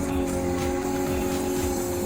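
Background music with steady held notes and a light, even beat.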